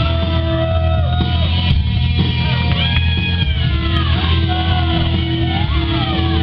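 Rock music with singing and guitar over a steady bass line.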